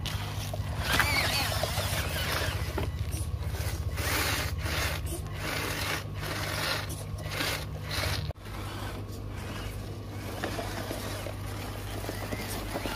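Small electric drive motor of a homemade RC pickup truck, running with a steady hum while the tyres scrape and crunch over mud and stones. The hum changes abruptly about eight seconds in.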